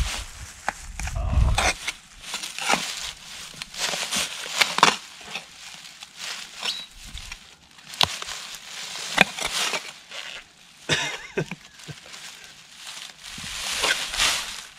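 Shovel digging in stony ground: irregular scrapes, crunches and knocks of blade on soil and rock, with a low rumble in the first two seconds.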